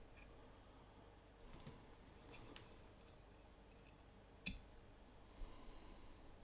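Near silence with a few faint clicks and small handling noises from fly tying: thread wrapped from a bobbin onto a tube fly. The sharpest click comes about four and a half seconds in.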